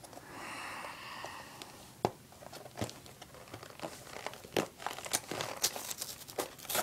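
Hands prying and peeling at the taped seal of a cardboard toy box: a soft rustle at first, then a run of crinkling clicks and small snaps of tape and card that grows busier in the second half.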